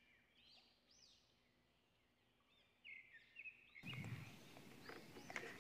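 Near silence with faint, repeated bird chirps in the background; low background noise comes back about four seconds in.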